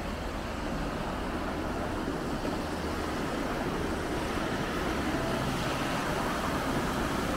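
River water rushing through a mill weir: a steady hiss of white water that grows slightly louder toward the end.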